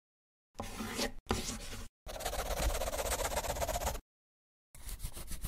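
Animated-logo sound effects of scribbling strokes: four short bursts of scratchy scribbling, each cut off sharply into dead silence. The longest burst comes about two seconds in, and the last one, near the end, has quick, even strokes.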